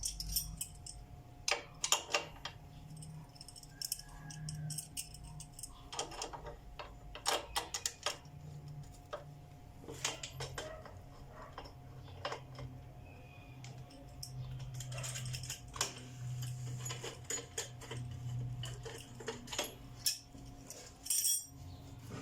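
Hand wrenches working the motorcycle's chain adjuster nuts and bolts loose: scattered metal clicks and clinks of tools on metal, over a faint steady hum.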